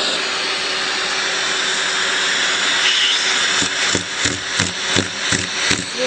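Vacuum cleaner running steadily with a constant hum. From about halfway through, a regular pulsing joins it, about three times a second.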